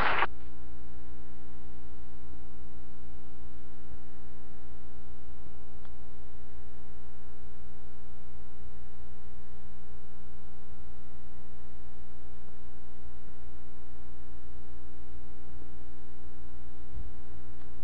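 Steady electrical mains hum: a constant buzz with many evenly spaced overtones, unchanging in level, and no other sound over it.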